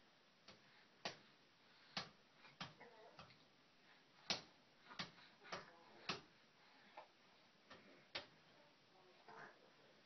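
Faint, irregular light taps, roughly one every half second to a second and loudest about four seconds in: a baby patting the top rail of its crib with its hands.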